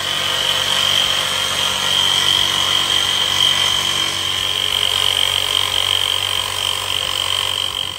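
Festool Trion jigsaw cutting a window opening through a motorhome's 30 mm sandwich wall of glass-fibre (GRP) skins over insulating foam. It runs steadily under load with a high whine, then cuts off just after the end.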